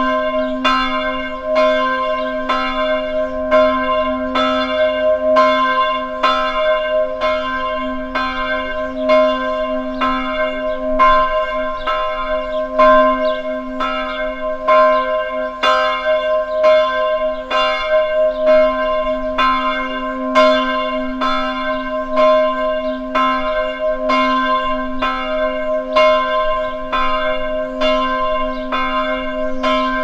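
Church bells ringing in a steady, even run of strokes, about three every two seconds, each stroke's tone ringing on under the next.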